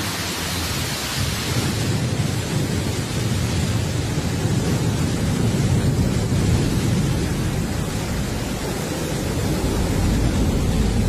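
Blue Origin New Shepard rocket's single BE-3 engine firing at ignition and liftoff: a steady, deep rushing noise of rocket exhaust.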